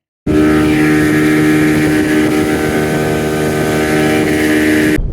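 Small gasoline outboard motor on a little fishing boat running steadily under way, one even engine note that starts suddenly and cuts off just before the end.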